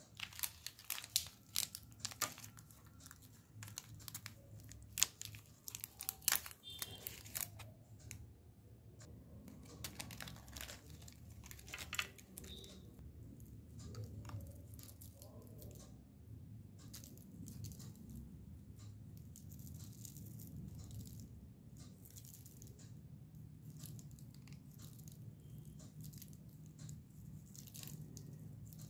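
Plastic candy wrapper being torn open and crinkled by hand, a dense run of sharp crackles over the first several seconds with another near the middle. After that only soft handling over a low steady hum.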